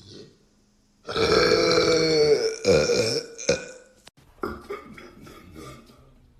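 A man belching loudly: one long drawn-out belch starting about a second in, then two shorter belches and a quieter, broken-up tail.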